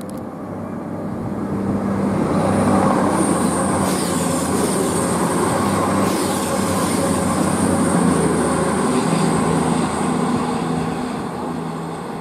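Two coupled CrossCountry Voyager diesel-electric multiple units passing, with their underfloor diesel engines running. The sound builds over the first few seconds, holds loud, then fades as the train runs away. A high thin whine sits over the passage.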